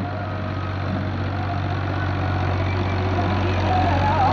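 Farm tractor's diesel engine running steadily under load as it pulls a cultivator through ploughed soil, growing louder as it draws near.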